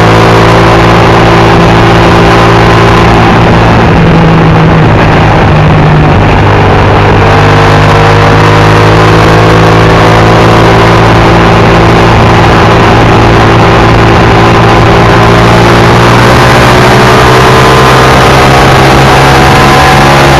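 Hyosung GT650 motorcycle's V-twin engine under load at highway speed, steady for the first few seconds and then climbing in pitch through the rest as the bike accelerates, with heavy wind rush over it.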